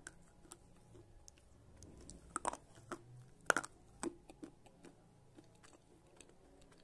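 Slate pencils being bitten and chewed: a run of sharp crunching snaps, the loudest about two and a half, three and a half and four seconds in, among many lighter crunches.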